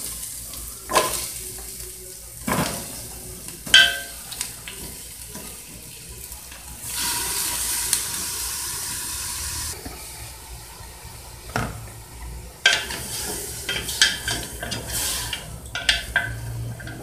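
Raw chicken pieces going into hot oil in an aluminium pot with browned onion and garlic: knocks of the plastic bowl and pieces against the pot, a steady sizzle for about three seconds midway, then quick clatter and scraping as the chicken is stirred with a wooden spoon near the end.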